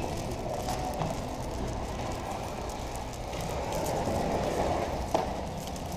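Walking noise on a body-worn camera: clothing rustling against it and footsteps, over a steady low rumble of store ambience, with one sharp tap about five seconds in.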